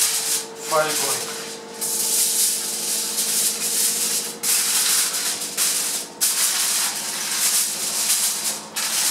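Aluminium foil crinkling and rustling as it is spread by hand over a baking tray and pressed down around the rim. It comes in stretches of one to three seconds with brief breaks.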